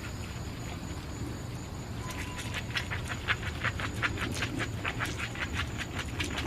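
Small dog panting rapidly, about four to five breaths a second, starting about two seconds in, over a steady low hum.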